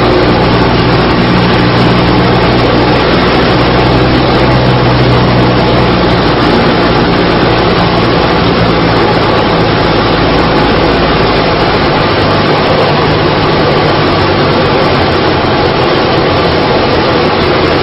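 Single-engine light aircraft's engine and propeller droning steadily, heard from inside the cockpit under a loud, even rush of noise. The low engine hum weakens about six seconds in and again near the two-thirds mark, while the rush stays.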